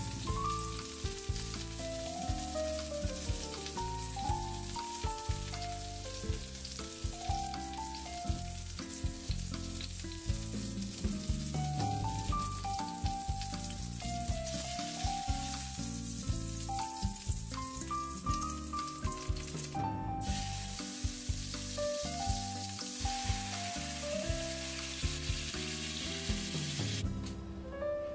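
Egg-coated chicken cutlets sizzling as they fry in oil in a stainless steel pan, under background music with a melody and bass line. The sizzle breaks off briefly about two-thirds of the way through and stops shortly before the end.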